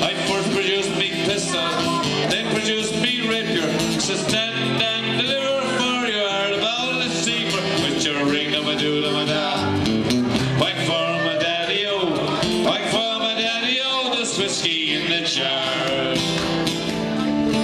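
Live Irish folk tune played on a strummed acoustic guitar and a bodhrán frame drum beaten with a tipper, at a steady tempo.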